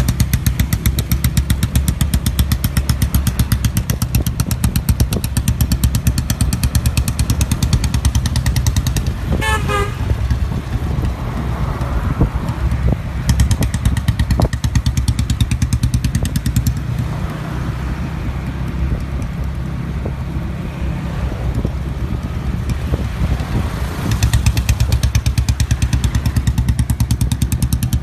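Old-model Royal Enfield Bullet's single-cylinder engine running with its steady, heavy exhaust thump, quieter for a few seconds in the middle and louder again near the end. A short horn toot sounds about ten seconds in.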